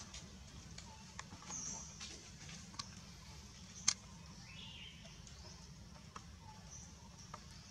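Dry leaves crackling and ticking as macaques handle and move through them, with a sharp click about four seconds in. A couple of brief, faint high squeaks sound among the clicks.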